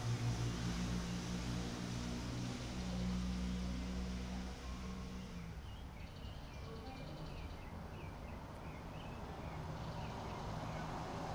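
Steady low engine-like hum in the background, easing slightly about halfway through, with a run of short high chirps in the middle.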